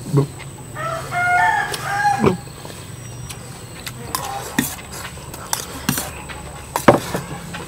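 A rooster crowing once, about a second in, a single drawn-out call of about a second and a half, with a fainter call a few seconds later. Sharp clicks and knocks come throughout, the loudest near the end.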